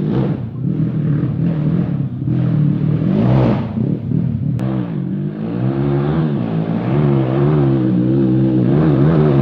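Dirt bike engines revving up and down, their pitch rising and falling again and again, growing louder over the last few seconds as the bikes come closer.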